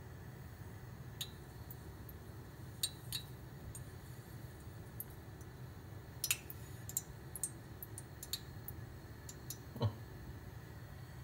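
Gas burner running with a faint steady rumble under an enamel mug of liquid that is heating, with scattered sharp ticks and clinks from the mug. One duller knock comes near the end.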